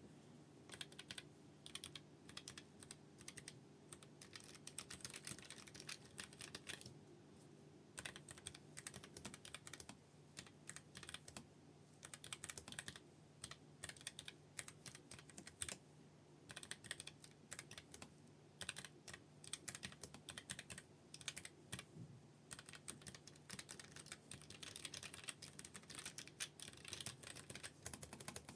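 Typing on a Keychron K3 v2 low-profile mechanical keyboard with stock Gateron brown switches. It is a fast run of key clicks with a few short pauses.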